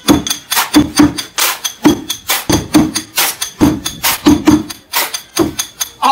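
Improvised percussion on construction gear: hands slapping plastic basins, with tool strikes in between, beating out a quick, steady rhythm of sharp knocks and dull thuds.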